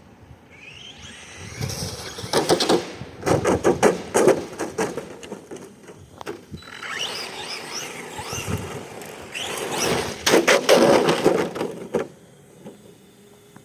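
Arrma Senton 3S RC truck's brushless electric motor whining up in pitch as it accelerates, with tyre noise and clattering knocks, in two separate runs a few seconds apart.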